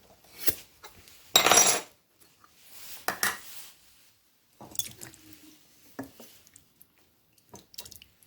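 A sealed pint canning jar being opened: a click, then a short loud rasping burst about a second and a half in, followed by scattered clinks of the metal lid and glass jar.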